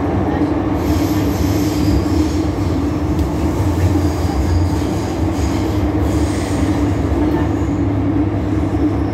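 MTR Island Line underground train running between stations, heard inside the carriage: a steady rumble with a low hum, and faint high wheel squeal that rises twice.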